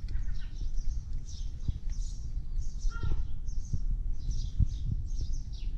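Small birds chirping over and over, each chirp a quick high downward sweep, over a steady low rumble; a single short, lower call comes about three seconds in.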